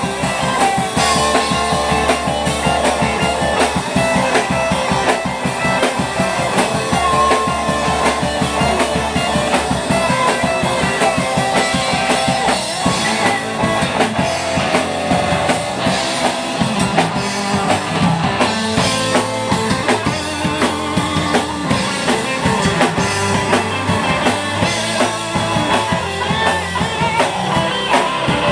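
Live rock band playing: electric guitars over a drum kit.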